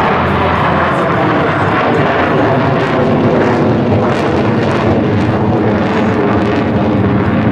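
Jet engine noise from Blue Angels F/A-18 Hornets in flight, loud and steady.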